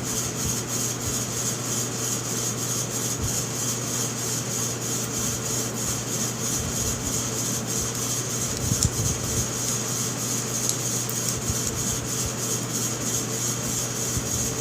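Steady background hum and hiss with a faint even pulse, like a running fan or motor, with a few light handling knocks about nine seconds in.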